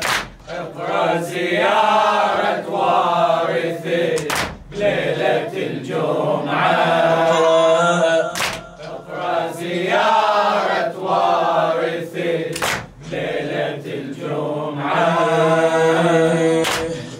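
Male voices chanting a mournful Shia latmiya in Arabic, in sung phrases of about two seconds with short breaths between, over a steady held tone.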